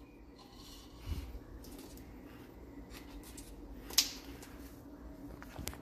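Quiet handling of clear plastic smoothie cups with domed lids and straws on a stone countertop: faint rustling, a soft knock about a second in, and one sharp plastic click about four seconds in.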